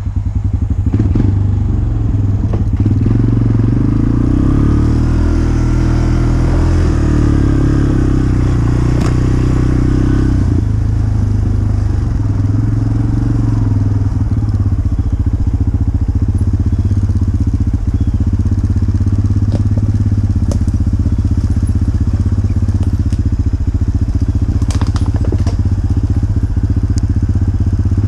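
Dirt bike engine running loudly at low speed, its pitch rising and falling a little early on and then holding fairly steady, with a few short clicks and snaps mixed in.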